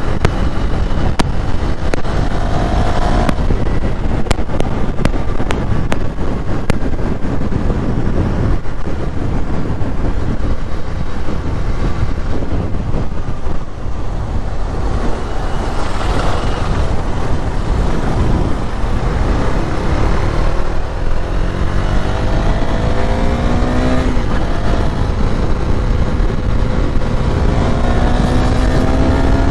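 Motorcycle riding at road speed, with heavy wind noise on the camera microphone. The engine's pitch rises briefly near the start and twice in the second half as it accelerates.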